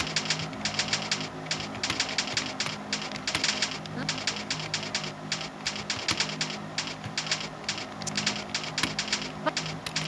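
Keystrokes on a keyboard during a timed typing test: a steady run of short key clicks, about three or four a second, broken by brief pauses. A low hum comes and goes underneath.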